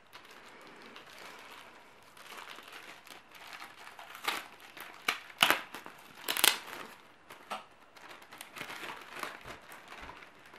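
Plastic packaging bag crinkling and crackling as a replacement laptop keyboard is unwrapped from it, with the sharpest crackles near the middle.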